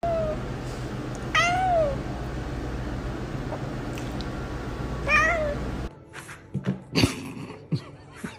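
Domestic cat meowing twice, each call rising then falling in pitch, over a steady low hum. Near the end, a few light knocks.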